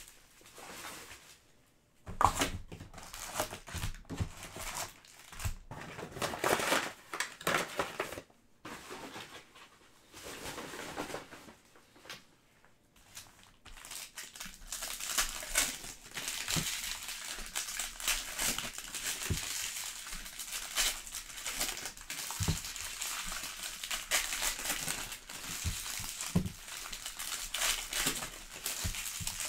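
Plastic wrapping and foil trading-card packs crinkling and tearing as they are opened by hand. The rustling comes in scattered bursts for the first half, then runs almost unbroken through the second half.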